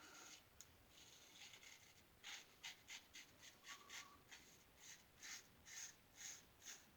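Gem single-edge safety razor scraping through lathered stubble in short, faint strokes, about two to three a second, starting about two seconds in.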